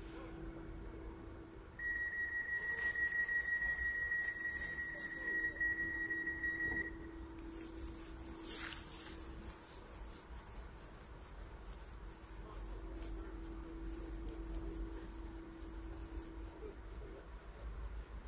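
Stationary PESA Impuls 2 (EN98A) electric multiple unit giving off a steady electrical hum. A high steady beep starts about two seconds in and lasts about five seconds, and a short hiss comes about eight and a half seconds in.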